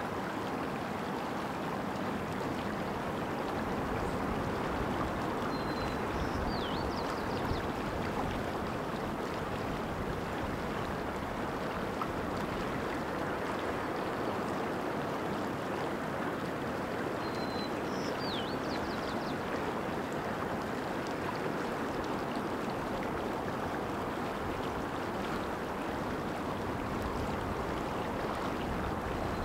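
Steady flowing of a shallow mountain creek over rocks. A songbird twice sings a short high phrase, about eleven seconds apart: a held note, a falling slur and a quick run of notes.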